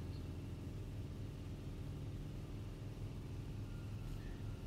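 Steady low hum of room tone, with no other event standing out.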